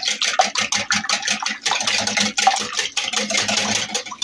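Wire balloon whisk beating eggs into melted margarine and oil in a glass bowl: quick, even strokes, the wires ticking against the glass as they churn the liquid batter.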